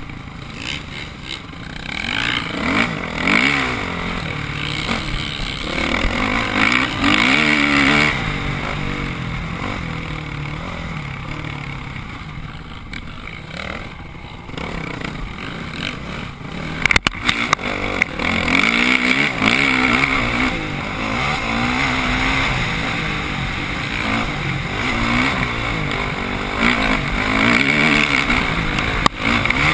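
Dirt bike engine heard from the rider's helmet, revving up and down with the throttle as the bike climbs a rough grass track. A few sharp knocks come about seventeen seconds in.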